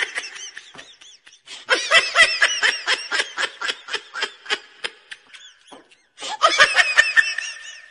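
Laughter sound effect: high-pitched laughing in quick pulses, coming in three runs with short breaks about a second in and again near six seconds.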